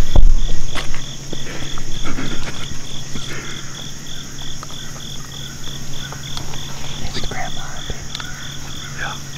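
Insects chirping steadily: a high chirp repeating about three times a second over a continuous high buzz, with light rustling and clicks of gear being handled close by.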